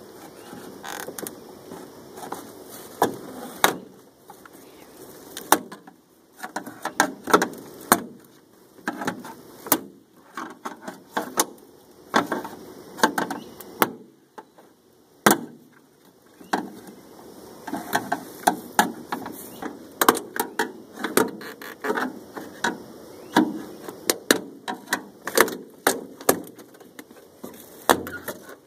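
Screwdriver prying the inner door panel off a classic VW Beetle door: a long run of irregular sharp clicks and knocks as the panel's retaining clips pop loose and the fibreboard panel rattles against the door.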